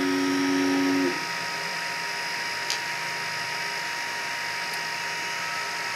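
3D printer stepper motor, on a TMC2209 driver, whining at a steady pitch as it drives an axis in a sensorless homing move, stopping about a second in. A steady electrical hum carries on after it.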